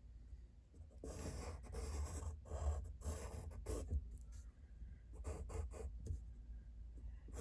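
Drawing strokes on paper, the scratch of a drawing tool sketching lines: a few longer strokes from about a second in, then a run of short quick strokes near the end.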